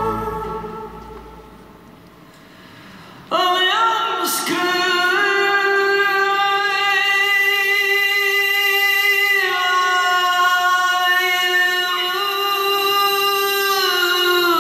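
Live singing with a symphony orchestra: the sound dies away over the first few seconds, then voice and orchestra come in suddenly about three seconds in, in long held notes that change pitch every few seconds.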